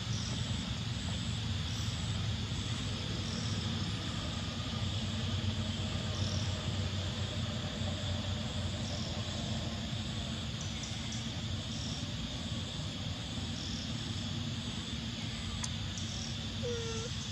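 Outdoor ambience: a steady low rumble with a faint high chirp repeating about every second and a half, typical of insects, and a brief falling call near the end.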